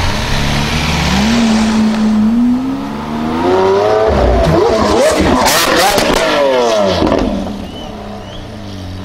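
Lamborghini Aventador's 6.5-litre V12 through a Capristo exhaust, revving as the car drives past: the engine note climbs, then sweeps up and down through several revs with sharp crackles at its loudest, and drops away after about seven seconds as the car pulls off.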